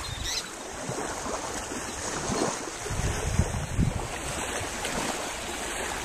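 Wind buffeting the microphone: a steady rush with uneven low gusts.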